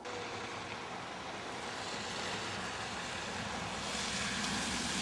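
Steady hiss and rumble of road traffic, with a car passing on a snowy road that gets louder around four seconds in.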